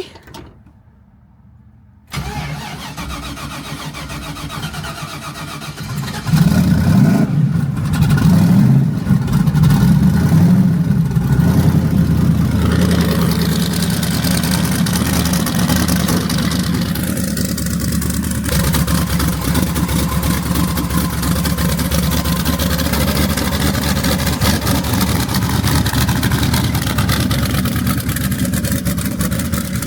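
Tuned car engine running on E85 making a cold start: it turns over for a few seconds, fires about six seconds in, revs unevenly for several seconds, then settles into a steady fast idle.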